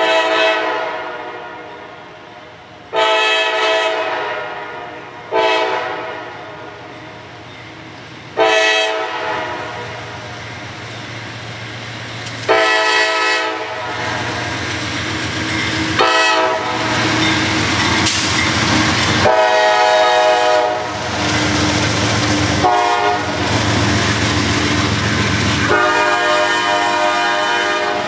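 A CSX diesel freight locomotive's multi-note air horn sounds about nine blasts, short and long, in repeated grade-crossing sequences. Under the horn, the rumble of the lead locomotives and the rolling train grows louder as it approaches and begins to pass, with double-stack container cars going by at the end.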